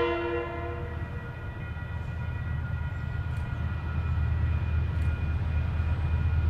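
The last of a diesel locomotive's horn dies away about a second in, then the low rumble of an approaching freight train hauled by DFB and DXC class diesel-electric locomotives grows steadily louder.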